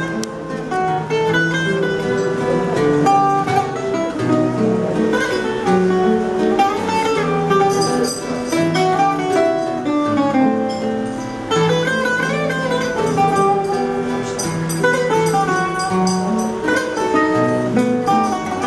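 Portuguese guitar and fado viola (classical guitar) playing together: quick plucked melodic runs over a steady strummed and plucked bass accompaniment. This is the instrumental introduction to a fado.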